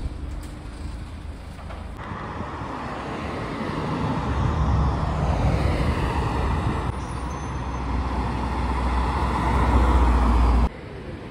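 City road traffic, with cars driving past. A passing car's engine rumble and tyre rush grow louder to a peak close by, then cut off abruptly near the end.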